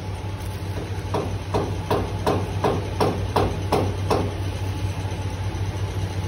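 A run of about ten evenly spaced knocks, a little under three a second, each with a short ring. They stop about four seconds in, over a steady low hum.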